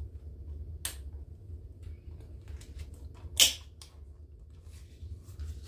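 A plastic cash envelope rustling and clicking against the metal rings of a six-ring binder as it is worked onto them, the punched holes slightly misaligned. There is a sharp click a little under a second in and a louder sharp snap about three and a half seconds in.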